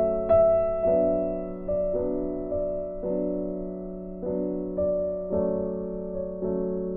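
Background piano music: slow notes, one about every second, each struck and fading.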